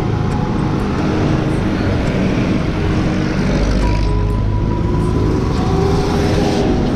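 Motorcycle riding along a road: steady engine, wind and road noise, with background music playing over it.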